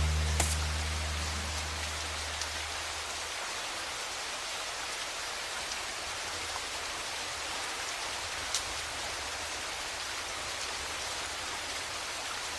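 Steady rain falling, an even hiss with a few sharper drips. The last low notes of music fade out over the first few seconds.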